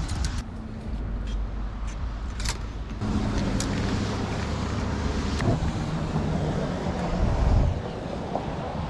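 A motor vehicle running with a steady low drone, with a few light clicks and rattles over it. The drone swells near the end, then drops away.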